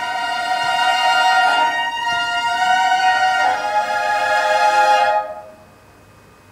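Morin khuur (horsehead fiddle) ensemble playing long held bowed notes, the chord shifting about three and a half seconds in. The music breaks off about five seconds in, leaving a pause.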